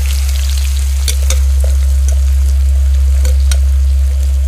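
Chopped onions sizzling as they fry in hot mustard oil in a metal kadhai, with a few sharp metal clinks as a steel bowl is knocked against the pan rim, over a steady low rumble.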